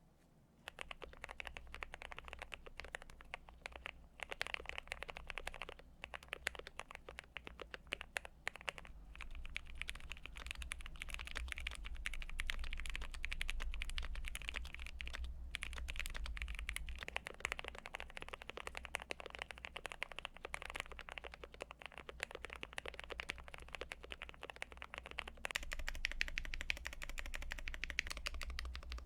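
Fast continuous typing on a Cyberboard mechanical keyboard with lubed and filmed Aquaking switches and GMK keycaps, dense keystroke clacks with a few brief pauses.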